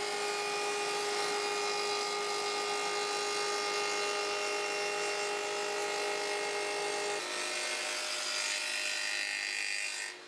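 Table saw with a stacked dado head running and cutting a rabbet in plywood, a steady whine over a hiss. The sound changes abruptly about seven seconds in, with the pitch dropping slightly.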